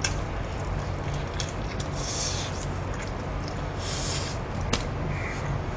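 A person eating a barbecued chicken drumstick: chewing and mouth noises, with two breathy sucking sounds about two and four seconds in and a sharp click near the end, over a steady low hum.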